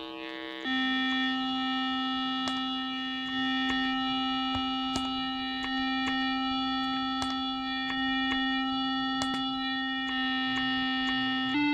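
A homemade Arduino-based digital synthesizer running the Mozzi library holds one steady note from about half a second in. Its tone shifts a few times as the second oscillator is detuned by +1, +2 and then +3 Hz against the first. Faint clicks come about every two seconds.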